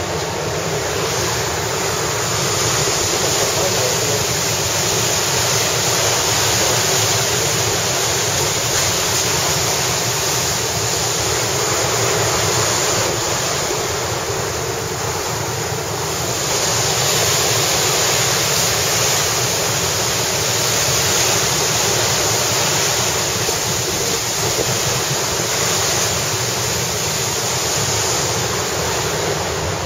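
Steady rush of wind across the microphone mixed with sea water rushing past the hull of a moving ferry, swelling and easing gently every few seconds.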